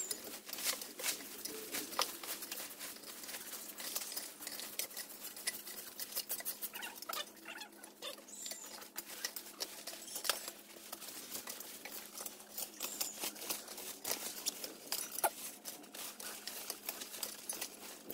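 Irregular light clicks, taps and scraping rustles of manual cleanup work, several a second, with no motor running.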